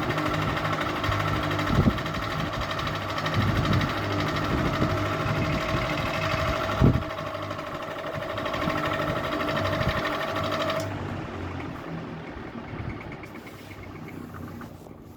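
Ceiling fan running with a steady motor hum and a higher whine, with a couple of short knocks. About eleven seconds in the whine cuts off and the sound fades away, as when the fan is switched off and winds down.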